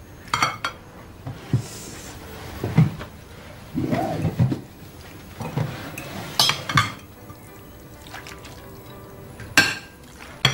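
Plates and cutlery clinking as pasta is served and eaten at a dinner table, with a few sharp clinks and a short pouring sound about four seconds in, over light background music.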